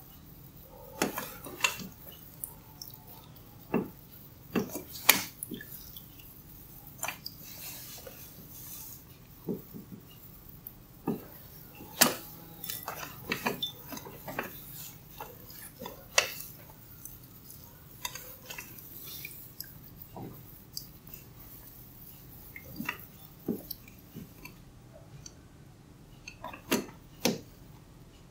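Hair cracking during a head massage: locks of hair pulled taut and snapped between the fingers, giving sharp, irregular cracks and pops in loose clusters with short pauses between.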